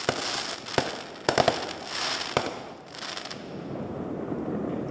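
Fireworks going off: several sharp bangs and crackling bursts in the first two and a half seconds, then a steadier background noise.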